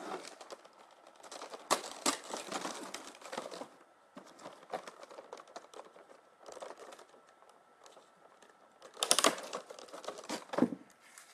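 Clear plastic blister packaging crinkling and clicking as it is handled and opened, in irregular bursts, louder about two seconds in and again around nine seconds.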